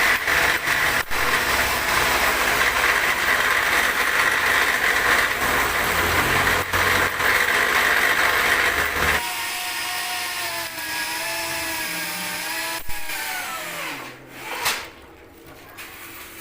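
Electric machine running loudly with a harsh, rattling mechanical noise. About nine seconds in the noise drops away, leaving the motor's hum, which falls in pitch as the machine winds down. A short whoosh comes near the end.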